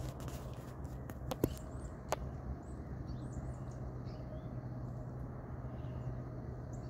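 Quiet outdoor ambience: a steady low hum, two sharp clicks about a second and a half and two seconds in, and a few faint high chirps.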